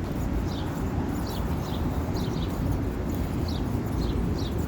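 Outdoor ambience: a steady low rumble with a string of short, high, falling chirps, about two a second, like small birds calling.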